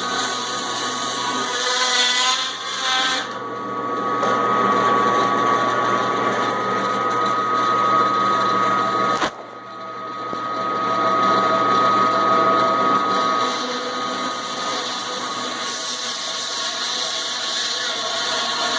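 Electric meat band saw running and cutting through a frozen leg of lamb: a steady motor hum with a high blade whine over the grinding of the cut. The sound drops off sharply for a moment about nine seconds in, then builds back up.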